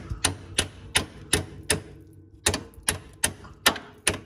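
A hammer tapping a steel U-bolt down around an ATV frame rail and into a plow mount plate: a steady run of sharp metal-on-metal strikes, about three a second, with a short pause about two seconds in.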